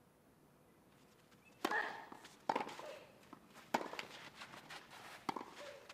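Tennis ball struck back and forth with rackets in a rally: four sharp hits roughly a second apart, starting about a second and a half in.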